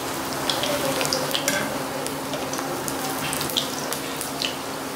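Round slices of bread deep-frying in hot oil in a wok: a steady sizzle with frequent sharp crackles and pops as they crisp into papdi.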